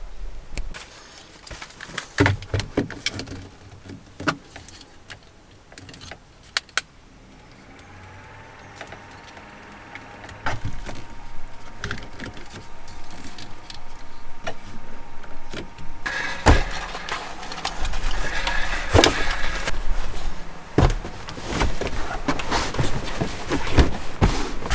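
Clicks and knocks of gear being handled, then a small clip-on battery fan whirring steadily, its pitch rising briefly as it spins up about a third of the way in. Past the middle it turns suddenly louder and higher, with rustling and knocks of handling over it.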